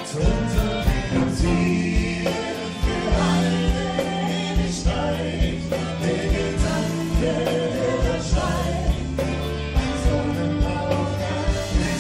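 Live band playing a song with singing over a steady drum-kit beat, bass, electric guitar, piano and horns.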